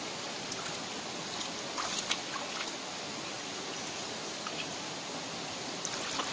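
Shallow stream running over rocks, a steady rush of water, with a few small splashes and knocks about two seconds in and again near the end as someone wades and reaches into the water.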